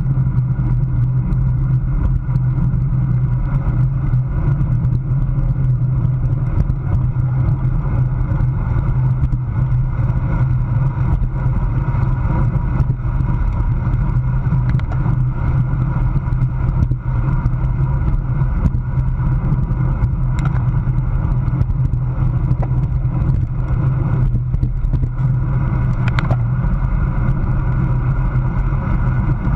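Steady wind rush and low rumble on the microphone of a handlebar-mounted camera on a road bike moving at about 25 mph, with the tyres running on the road.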